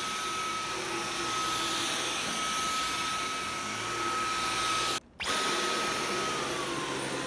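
Dyson V11 Torque Drive cordless stick vacuum running steadily with its repaired Torque Drive cleaner head, a rushing hiss with a high motor whine. The whine steps down in pitch about six and a half seconds in. The sound cuts out for an instant at about five seconds.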